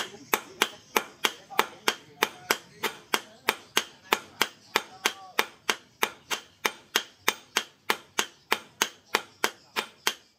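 Hammer blows forging a red-hot steel sword blade on a steel post anvil: sharp metallic strikes in a steady rhythm, about three a second.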